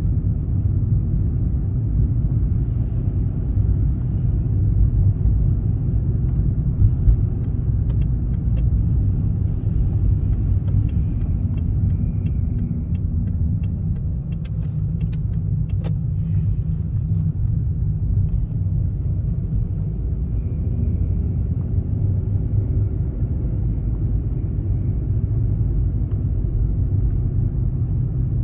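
Car driving through city streets: steady low rumble of tyres and engine heard from inside the cabin, with a few faint clicks midway.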